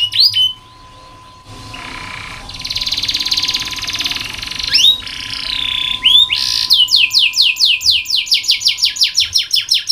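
Domestic canary singing: a fast trill of repeated sweeping notes that breaks off half a second in, then a harsh buzzy roll with a few sliding notes, and a new fast trill of repeated falling notes from about seven seconds in.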